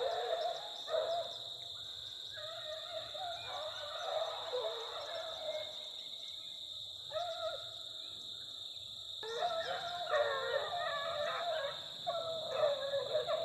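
Beagle hounds baying on a rabbit's trail: long, wavering howls from several dogs overlapping, thinning out for a few seconds midway, then several voices together near the end. A steady high whine runs underneath.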